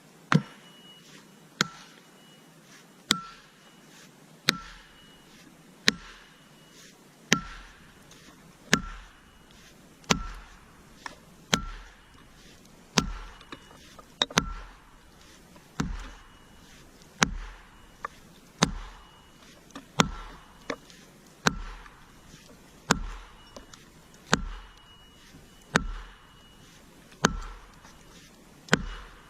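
A heavy tool striking over and over in a steady rhythm, about one blow every second and a half, each blow with a short ringing tone after it and now and then a lighter strike in between.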